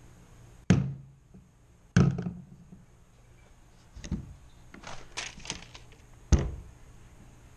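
An object set down several times on a Wilderness Tarpon 120 kayak's freshly installed foam deck pad: about five dull thunks a second or two apart, with a few lighter knocks between. The pad deadens the impact that used to bang on the bare plastic deck.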